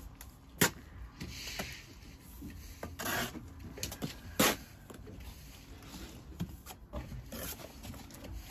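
Bricklaying trowel work on concrete blocks: short scrapes as mortar is spread and a few sharp knocks, the loudest about four and a half seconds in.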